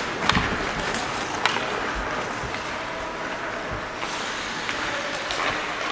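Ice hockey play: a steady scraping hiss of skates on the ice, with a few sharp clacks of sticks on the puck.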